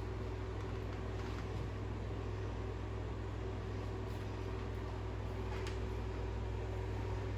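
A steady low hum with a faint higher tone over it, and a few faint ticks, the sharpest about five and a half seconds in.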